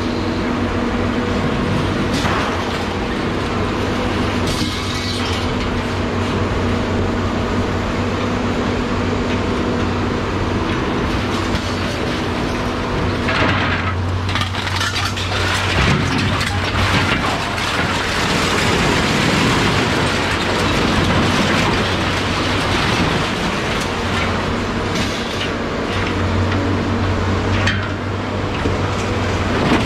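A machine's engine running steadily, with loud rattling and clattering over it.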